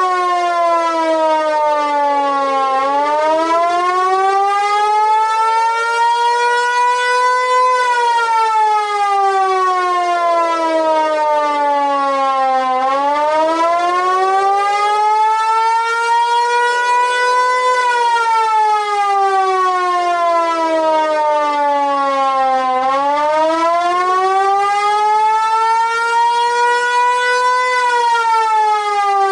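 Lion King JDW245 (Vixen VXS-2245AR) electromechanical dual-rotor siren wailing. Its pitch falls over about five seconds and climbs back over about five, three times.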